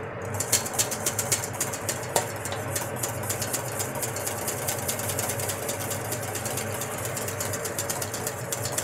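Wire balloon whisk beating hollandaise sauce (egg yolks and melted butter) in a metal saucepan over simmering water: fast rhythmic clicks and scrapes of the wires against the pan, several strokes a second, with a steady low hum underneath. The sauce is at the stage of just starting to thicken.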